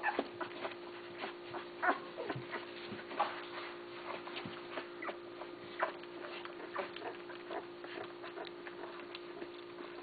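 Basset hound puppies giving many short, high cries and squeaks, scattered and overlapping, over a steady low hum.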